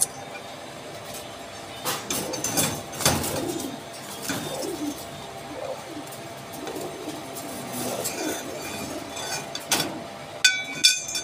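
Domestic Giribaz pigeons cooing in a loft, with a series of low, soft coos repeating over several seconds. A few sharp clicks fall among the coos, and near the end there are a couple of brief ringing metallic clinks.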